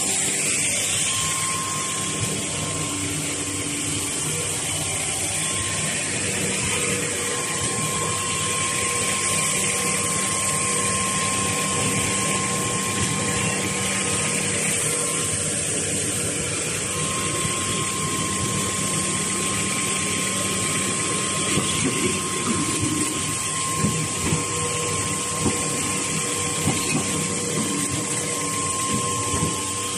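Automatic V-fold facial tissue production line running: steady machine noise with a thin steady whine. From about two-thirds of the way in, short sharp knocks come roughly once a second.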